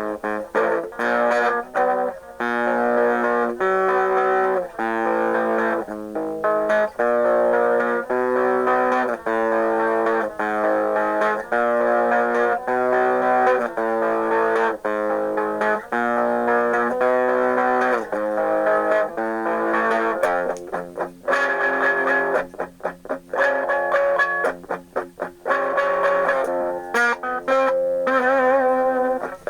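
Distorted electric guitar in an unusual alternate tuning playing a punk-style progression of ringing chords that change about once a second. Roughly two thirds of the way through, the playing turns choppier, with short notes and brief breaks.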